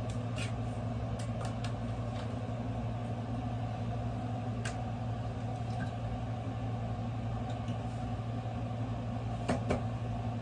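A steady low machine hum with a few light clicks and taps scattered over it, two of them close together near the end.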